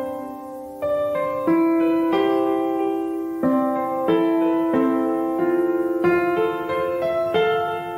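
Background piano music: slow, gentle chords, each struck and left to ring, with a new one about every second.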